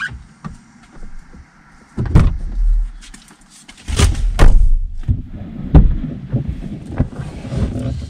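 Knocks, thuds and rustling inside a car cabin as people climb into the front seats and settle in.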